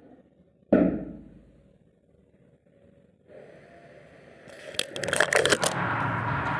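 A single sharp knock on wood, then a few seconds of rough scraping with rapid crackling, building up and getting louder towards the end.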